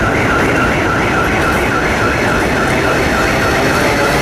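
Subway train running past on the elevated track with a steady loud rumble of wheels and motors. Over it, a high tone warbles up and down about three times a second throughout, and faint motor tones come in near the end.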